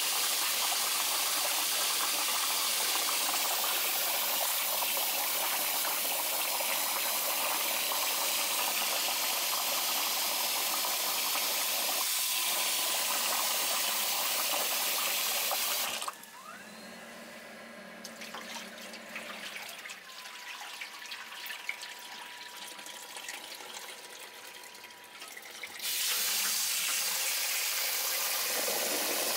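Tap water pouring steadily into a metal bowl of salmon roe while a hand swishes it through the water to rinse it. Partway through, the stream drops to a quieter stretch of small splashes and trickling for about ten seconds, then the full pour comes back near the end.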